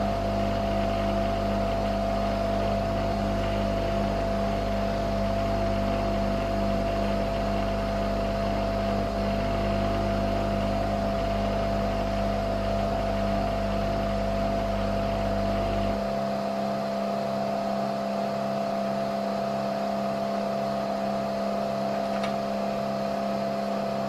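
Nespresso Vertuo Next coffee machine brewing, spinning the capsule as it dispenses: a steady mechanical hum with a deep drone underneath. About two-thirds of the way in the deep drone stops and a lighter hum carries on.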